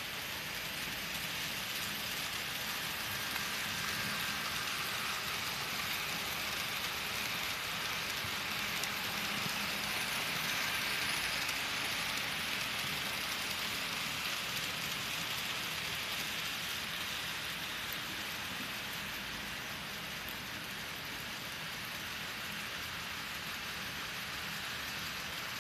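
N-scale model trains running on the layout's track: a steady hiss and rattle of small wheels and motors that swells as a train passes closest, about eleven seconds in, then fades again.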